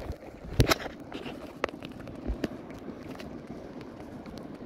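Knocks and rubbing of a handheld phone being turned in the hand, over a steady hiss of wind and sea water. The sharpest knock comes a little over half a second in, with a few lighter ones after it.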